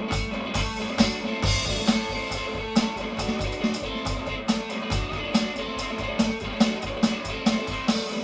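Band playing an instrumental blues-rock intro: a repeating guitar part over drum kit with a steady beat.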